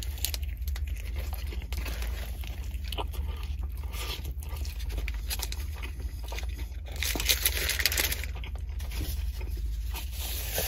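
Close-up chewing of a bite of an Arby's Greek gyro (pita, meat and tzatziki), with many small wet clicks and crunches over a low steady hum. Paper rustles briefly about seven seconds in.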